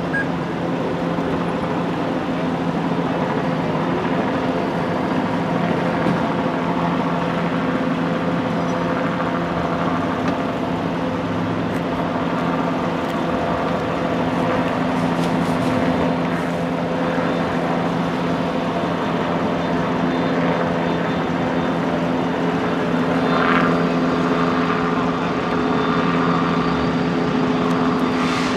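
Idling vehicle engines giving a steady low hum that holds one pitch, over the rush of road traffic.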